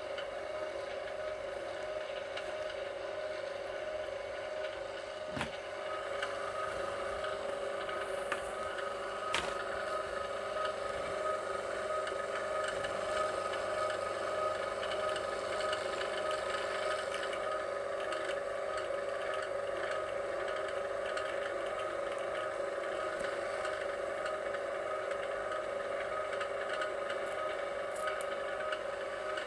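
Electric wire stripper's motor running with a steady hum, with a sharp click about five seconds in and another about nine seconds in.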